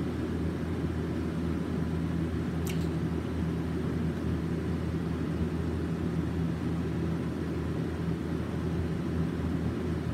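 Steady low hum and rumble with no speech, and a brief faint click about two and a half seconds in.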